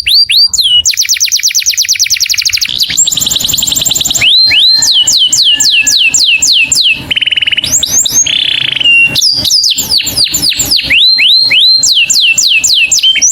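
Canary singing a continuous song of rapid rolling phrases. Fast buzzy trills about a second and three seconds in give way to runs of quick falling whistled notes, with two short steady-pitched trills in the middle.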